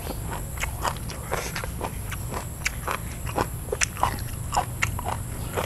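A person chewing crunchy food close to the microphone, with many short crisp crunches coming a few times a second at an uneven pace.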